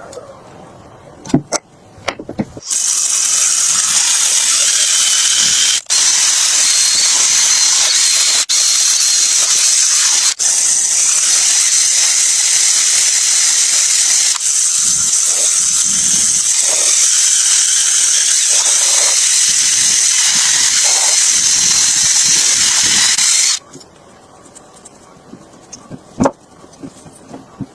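A high-pressure jet hissing loudly and steadily, with brief cut-offs as the trigger is released three times, then stopping abruptly; a few dull knocks can be heard underneath.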